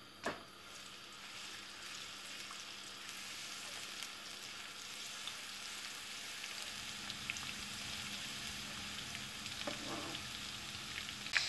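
Grated garlic frying in hot oil in a nonstick wok, a steady crackling sizzle that slowly grows louder, with a silicone spatula stirring through it. One short knock comes just after the start.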